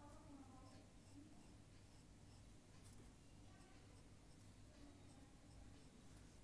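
Faint scratching of drawing strokes on paper, short strokes coming and going.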